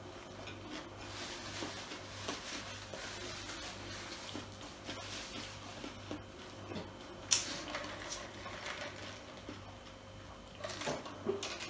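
A man chewing a mouthful of burger: faint wet mouth sounds with small clicks. Near the end comes a sip through a drinking straw.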